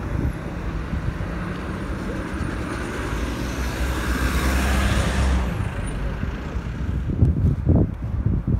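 City street traffic: a steady low rumble of car engines, with a vehicle passing close whose tyre and engine noise swells to a peak about five seconds in and then drops away quickly. A few low thumps come near the end.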